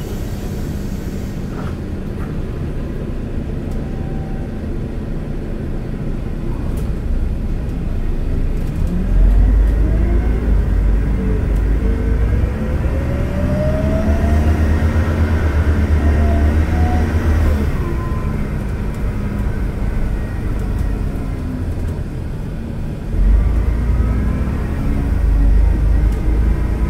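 Mercedes-Benz O500LE CNG midi bus running. About nine seconds in, the engine note rises sharply and a whine climbs in pitch as the bus accelerates. It eases off past the middle, then pulls away again near the end with another rising whine.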